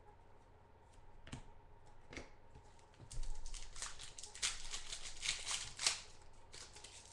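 Foil wrapper of a 2012 Panini Momentum football card pack being torn open and crinkled by hand, a quick run of crackling that starts about three seconds in, after two faint taps.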